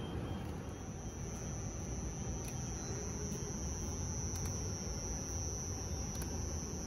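Steady high-pitched trill of night insects, starting about a second in, over a low outdoor rumble, with a few faint clicks.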